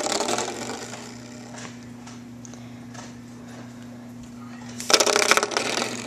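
A spring door stopper twanged by a dog: a buzzing, vibrating boing dying away at the start, then a second loud twang about five seconds in that rings for about half a second and fades.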